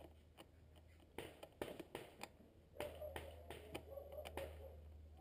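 Scattered small clicks and taps of fingers handling and turning a Phillips screw by hand into the plastic lid of a car's air filter box, the screw started by hand so as not to strip the thread.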